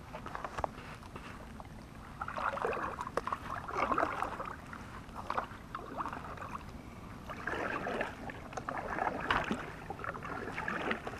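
Kayak paddle strokes: the blades dipping and splashing through the water in rushes of about a second each, in two spells with a lull between, with a few light knocks.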